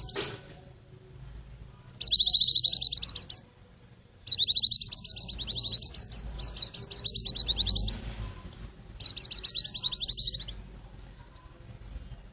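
White-eye (pleci) singing: about five loud phrases of rapid, high twittering trills, most of them one to two seconds long, with short pauses between.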